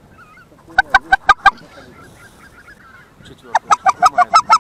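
Geese honking: a quick run of about five loud honks about a second in, then a longer, faster run starting near the end, over faint calling of more distant geese.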